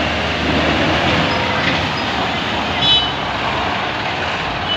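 Tata Signa multi-axle tipper truck's diesel engine running as the truck moves slowly over dirt, with a short high beep about three seconds in.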